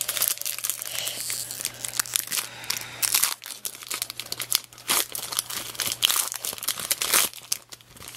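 Foil wrapper of a baseball card pack crinkling and tearing as it is opened by hand: a dense run of sharp, irregular crackles.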